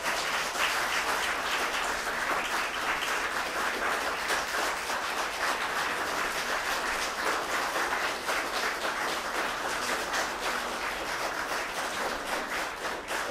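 Audience applauding, a dense steady clapping that thins into more separate claps near the end.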